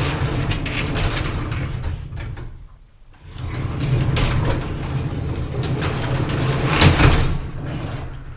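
A hand-operated sectional garage door rolling along its metal tracks, its rollers rumbling and rattling, in two long runs with a brief pause between them. The door is being tested after its torsion spring tension was adjusted.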